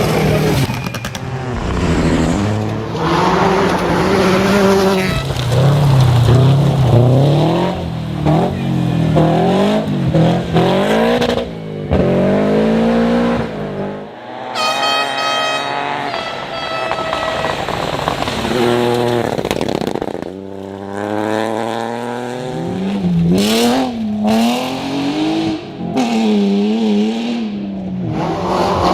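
Rally car engine revving hard on a stage, its pitch climbing with each gear and dropping back at the shifts, over and over.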